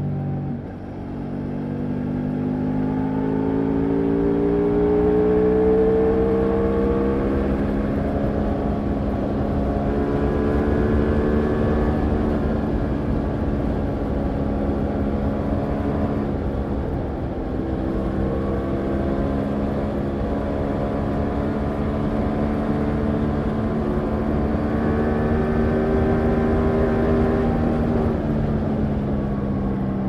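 Ducati Multistrada V4 Rally's 1158 cc V4 engine under hard acceleration at high speed. About half a second in there is a quick upshift, then the engine note climbs as the bike pulls up to around 200 km/h, holds steady at speed, and drops near the end as the throttle is eased. Heavy wind rush runs underneath.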